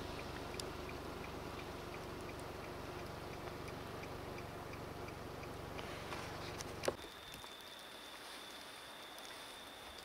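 Outdoor ambience in falling snow: a steady low rumble of wind on the microphone and distant traffic. About seven seconds in, a click cuts it to a quieter hiss with a faint, steady high-pitched tone.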